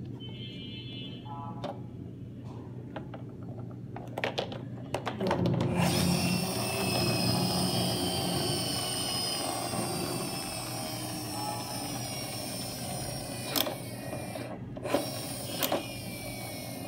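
Toy bus's drive mechanism whirring. It starts suddenly about six seconds in and slowly falls in pitch, like a small motor winding down. A few sharp clicks come before it starts and a few more near the end.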